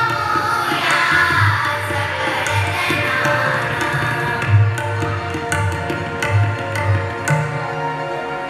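Electronic keyboard playing a melody of held notes over a tabla-style percussion rhythm, with a low drum thump recurring beneath.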